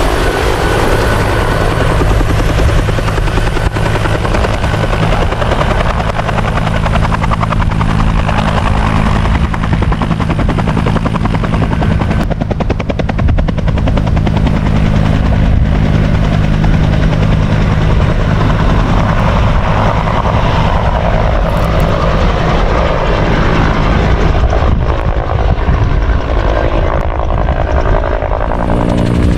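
Bell UH-1H Huey firefighting helicopter flying and hovering close by: its turboshaft engine and two-blade main rotor run steadily, with a continuous rotor beat.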